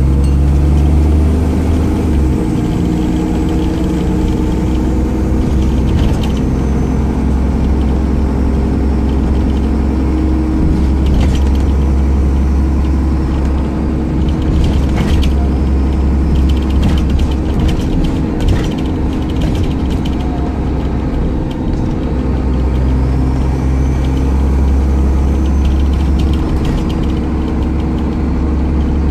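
Dennis Trident 2/Enviro400 double-decker bus driving, heard from inside the passenger saloon. Its retrofitted Cummins ISCe diesel engine runs loud, its note rising and falling as the bus pulls away and eases off, with faint rising and falling whines. Interior fittings rattle and click about halfway through.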